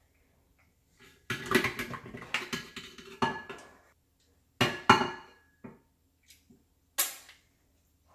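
Stainless steel stand-mixer bowl and flat beater clanking and scraping as they are taken off the mixer: a clattering run of metal knocks with some ringing for a couple of seconds, then a few separate knocks.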